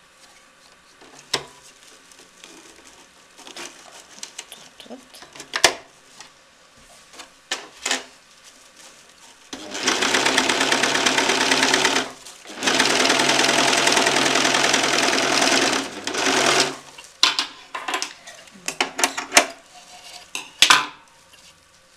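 Electric sewing machine stitching through burlap and lining in two runs, about two and a half and three and a half seconds long, with a short stop between. Before and after the runs come scattered light clicks and knocks.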